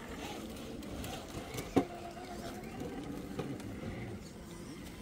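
Radio-controlled rock crawler's electric motor and gearbox whirring as it drives slowly over rough ground, with one sharp knock about two seconds in.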